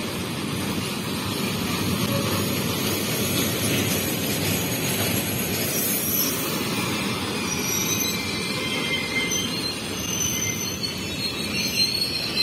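Rail tank wagons rolling past during a shunting move, with a steady rumble of wheels on the track. High wheel squealing starts about two-thirds of the way through and grows stronger near the end.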